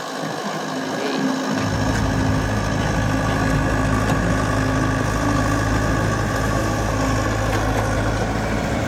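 Yanmar ViO70 mini excavator's diesel engine running with a steady low hum while the boom and arm are worked, growing a little louder over the first two seconds.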